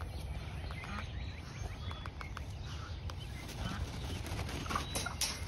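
Small birds chirping in the background over a steady low rumble, with a few sharp rattles and scuffs, the loudest about five seconds in, as an owl flaps its wings against wire fencing.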